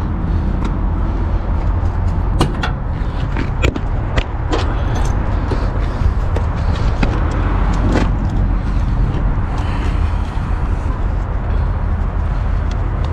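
Steady low rumble of an idling truck engine, with scattered knocks and clatter of gear being handled in a semi truck's side storage compartment: red air hoses, a rag and a roll of duct tape.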